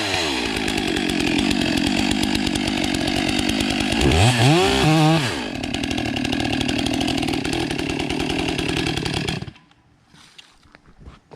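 Stihl MS 661 two-stroke chainsaw with a 36-inch bar running at high revs while cutting into chainsaw chaps laid over a log, dipping and picking back up in revs about four seconds in. The engine cuts off suddenly near the end.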